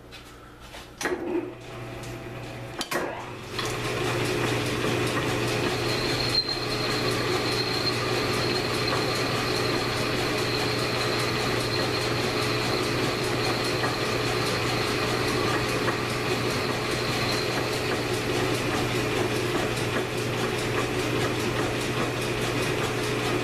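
1942 South Bend lathe taking a final turning pass on a steel AR-15 bull barrel. After a few clicks and knocks as it is set going, it settles about three and a half seconds in into a steady running hum of motor and gear drive. A thin high tone rides over it from about six seconds to about seventeen seconds.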